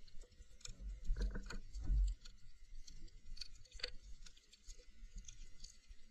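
Underwater reef crackle: scattered, irregular sharp clicks typical of snapping shrimp on a coral reef. A muffled low rumble with a few knocks comes about one to two seconds in.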